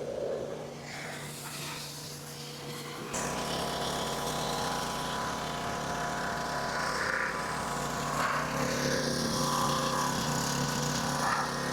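Gasoline pressure washer's small engine running steadily. The sound gets louder and fuller about three seconds in, then holds steady.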